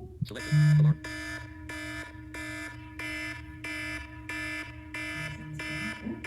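iPhone ringtone or alarm tone playing: a pulsed electronic tone repeating about twice a second over a steady note, with a loud low buzz about half a second in.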